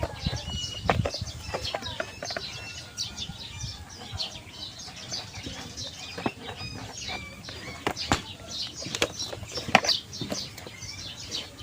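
Small birds chirping over and over, with scattered sharp clicks and taps.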